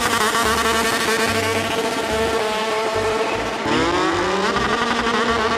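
Racing engine revving high and holding a steady pitch. About three and a half seconds in it drops, then revs up again and holds.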